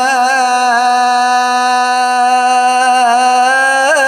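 A male voice chanting an Islamic ibtihal with no instruments heard. He holds one long melismatic note in a steady pitch, with wavering ornamental turns that quicken near the end.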